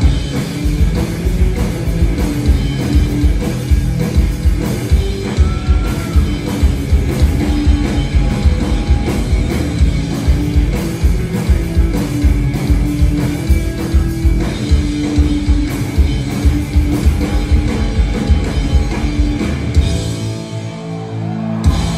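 Punk rock band playing live: distorted electric guitar, bass and drum kit driving through an instrumental stretch with a steady beat, thinning out near the end and closing with one last loud hit.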